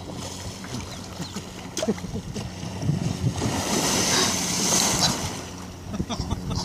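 A rush of splashing water lasting a couple of seconds, starting about three seconds in, as a humpback whale's tail lifts out of the sea right beside a kayak, with wind on the microphone.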